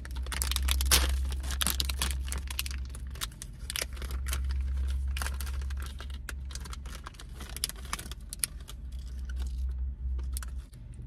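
Snack wrapper crinkling and tearing as a small pie cake is unwrapped, a dense run of crackles and rustles that thins out near the end.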